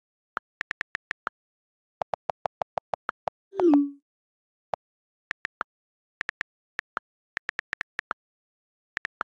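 Clicks of the iPad's on-screen keyboard in quick irregular runs as a message is typed, some keys clicking higher and some lower. About three and a half seconds in comes the louder, low bubbly plop of an incoming message arriving in the open Messages conversation.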